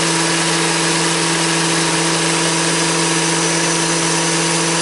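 Blender motor running steadily at constant speed, pureeing a liquid pepper-and-spice marinade in its jar.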